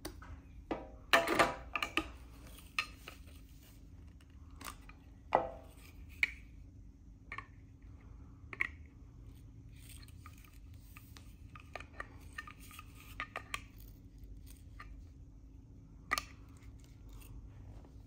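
Scattered plastic clicks and knocks from a Baseus handheld cordless car vacuum and its flexible hose attachment being handled and pulled apart; the vacuum is switched off. The loudest knocks come about a second in and again around five seconds.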